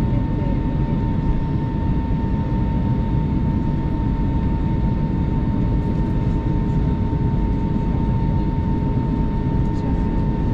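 Steady cabin noise inside an Airbus A220 moving slowly on the ground: a dense low rumble with two steady hums, one mid and one higher, running evenly throughout.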